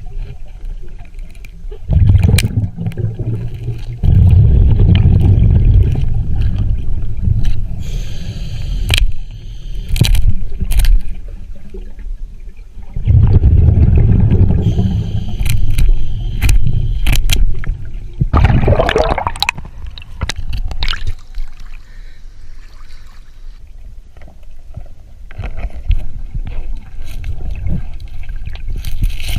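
Underwater scuba breathing: exhaled bubbles from the regulator rumble and gurgle in loud surges lasting a few seconds, with quieter stretches between breaths and scattered sharp clicks and knocks.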